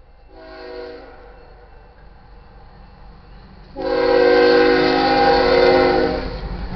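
GE ES44C4 locomotive's air horn sounding a chord: a short blast, then a loud long blast of about two and a half seconds, ending the grade-crossing warning. The locomotive's low rumble follows as it passes near the end.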